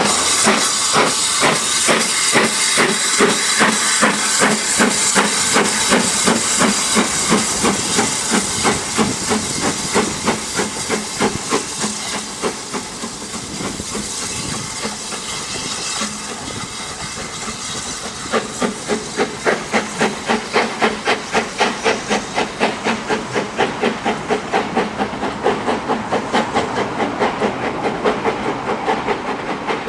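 Steam locomotive working under steam, its exhaust beats coming in a fast, even rhythm over a constant hiss of steam. The beats fade for a few seconds midway, then come back louder from about two-thirds of the way in.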